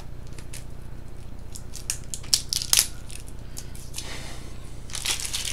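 Plastic shrink wrap being picked at and peeled off a small card-game box by hand: scattered sharp crackles, turning into a denser crinkling near the end, over a steady low hum.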